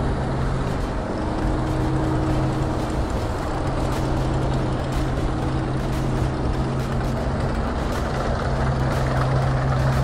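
Dronningborg D7000 Hydrostatic combine harvester running, a steady drone with a strong low hum.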